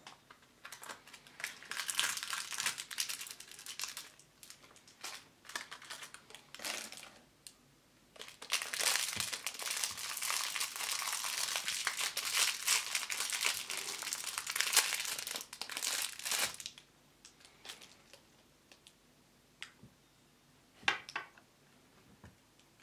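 Thin clear plastic wrapper crinkling and tearing as hands open it, in bursts with short pauses and a long stretch in the middle. A few light taps near the end.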